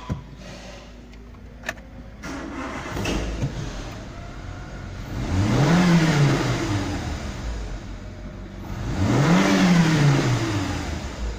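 Renault Megane II's 1.6-litre K4M sixteen-valve four-cylinder petrol engine starting about two seconds in after a couple of clicks, then idling and revved twice, each rev rising and falling back to idle.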